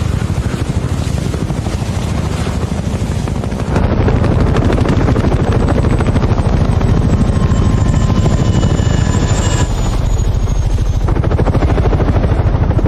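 A light single-rotor helicopter passing low overhead, its rotor chop steady and loud, growing louder about four seconds in as it comes over.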